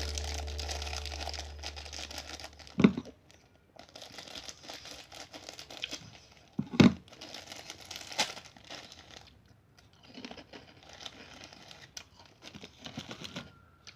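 Plastic packaging crinkling and tearing as a bag of kerupuk crackers is handled and opened, with a few sharp, louder crackles.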